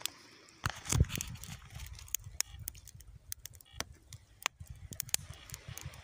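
Wood campfire of split kindling crackling, with many sharp, irregular pops and snaps. A low rumble of wind or handling noise on the microphone peaks about a second in.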